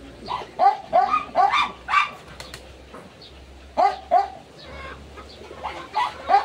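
Young puppy whining and yelping in short, high-pitched cries that fall in pitch, several in quick succession in the first two seconds, then a few more later, while it is picked up and held.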